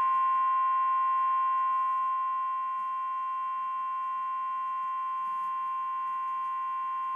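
Weather-radio emergency alert tone: one long, steady, unbroken beep near 1 kHz. It announces a National Weather Service flash flood warning that is about to be read out.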